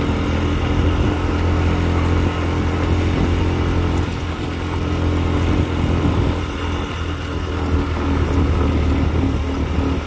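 Small motorcycle engine running at a steady cruising speed, heard from on the bike, with a steady rush of wind and road noise.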